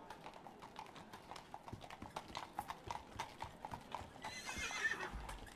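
Horse hooves clip-clopping irregularly on hard ground, mixed with other scattered knocks. A short, high, wavering cry stands out about four seconds in.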